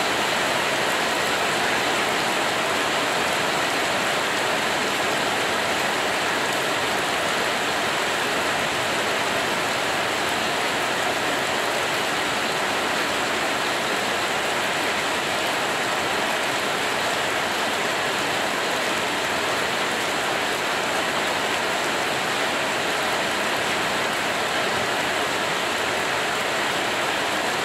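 Steady rain falling, an even unbroken hiss that holds at one level throughout.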